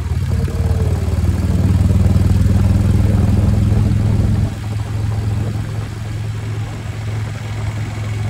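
Indian V-twin touring motorcycle running at road speed: a steady low engine drone that drops a little in level about halfway through.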